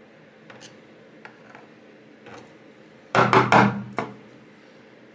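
A pin-tumbler lock cylinder being knocked against a hard surface to free its last stuck pin: a few faint metal clicks, then a quick burst of four or so hard knocks about three seconds in and one more just after.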